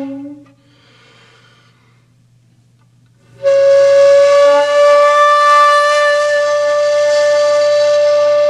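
A long, steady, flute-like held note with strong overtones starts sharply about three and a half seconds in, after a quiet pause of about three seconds.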